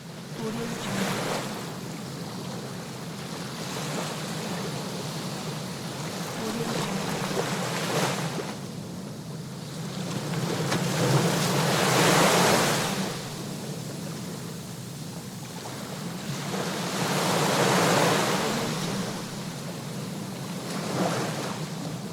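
Sea waves breaking and washing onto the shore, swelling and falling back every few seconds, with two bigger waves in the middle and later on.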